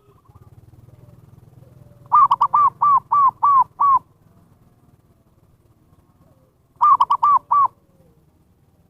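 Zebra dove (perkutut) cooing: two phrases of quick, evenly spaced arching notes, the first of about seven and the second of about five, the call used to lure wild doves. A faint low hum runs underneath.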